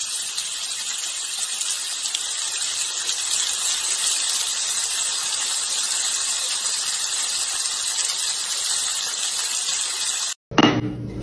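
A steady, loud hiss like sizzling that runs unbroken and then cuts off suddenly near the end.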